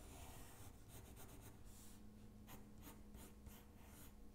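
Faint scratching of a pencil sketching on paper, in a run of short, irregular strokes.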